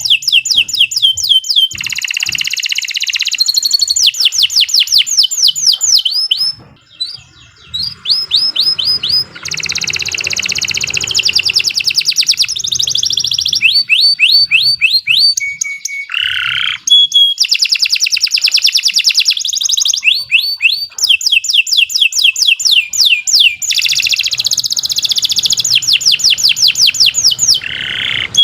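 Domestic canary singing a long, nearly unbroken song of fast trills and buzzy rolls, the kind of continuous 'gacor' song used to train other canaries, with one brief pause about seven seconds in.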